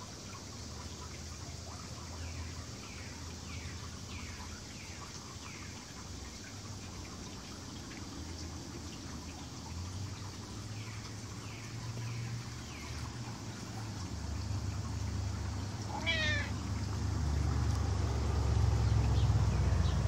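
Ragdoll cat purring close to the microphone as it is stroked, a low rumble that grows louder toward the end, with one short meow about sixteen seconds in.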